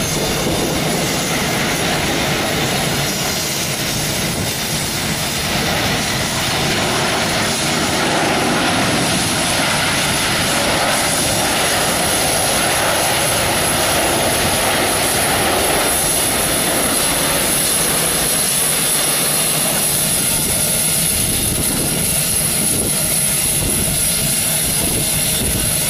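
Jet engines of a Boeing 747-200F freighter during its landing roll, a loud, steady rush and rumble that grows a little louder about seven seconds in.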